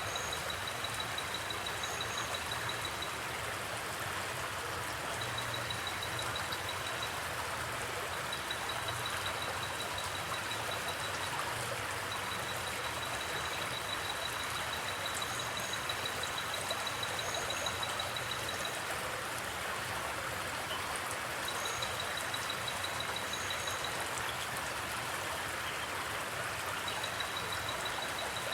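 River water running steadily, with crickets trilling in high, rapidly pulsed runs of a few seconds each that stop and start, and short double chirps now and then.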